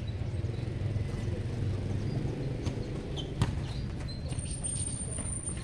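Basketball bouncing on a concrete court with scattered thuds and footsteps, one sharper bang about three and a half seconds in, over a steady low rumble.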